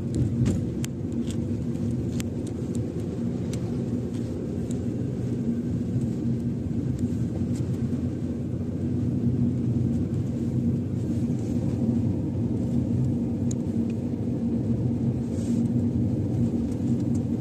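A car driving at a steady pace: a constant low engine and road rumble, with a few sharp clicks and ticks in the first few seconds.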